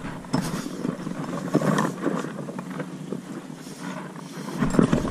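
Footsteps scuffing and knocking on breakwater boulders, a few scattered knocks over a steady rush of outdoor noise.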